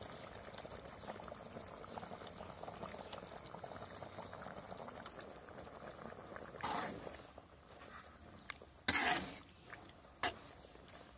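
Chicken curry bubbling steadily at a simmer in a large pot. In the second half a ladle stirs through it, making a few louder sloshing, scraping sounds.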